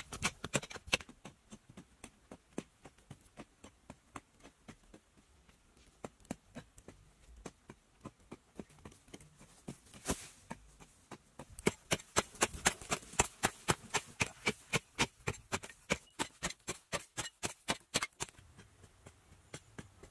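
Hand tools chopping and scraping into dry, grassy soil: a run of short, sharp strikes, sparse at first and quickening to about three a second in the second half.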